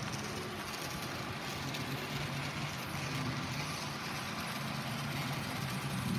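Small electric motor of an N scale steam locomotive running on track, a steady low whirring hum. It runs stuttery, which the owner puts down to the engine needing a break-in.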